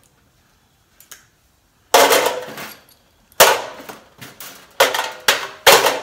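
Steel hand tools, locking pliers and hammers, dropped one after another into a sheet-metal tool tray, each landing with a loud metallic clatter that rings briefly. Five drops, starting about two seconds in, the last three close together.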